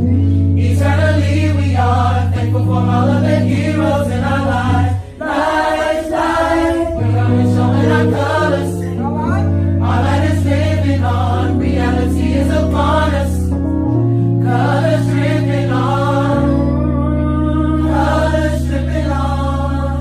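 Background music: a gospel choir singing over sustained low chords, with a brief drop in the music about five seconds in.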